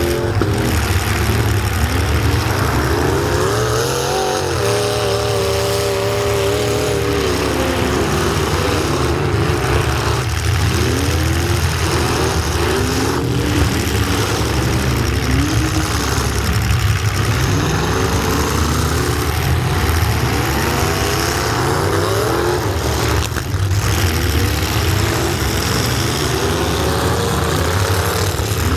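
Truck engines running and revving, their pitch rising and falling over and over, with several engines overlapping, above a constant low rumble.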